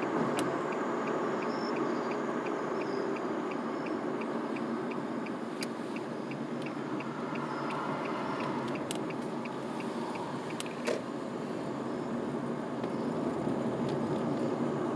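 Car cabin noise while driving slowly, with a turn-signal indicator ticking about three times a second; the ticking stops about eight and a half seconds in, after the turn. A few sharp clicks come in the second half.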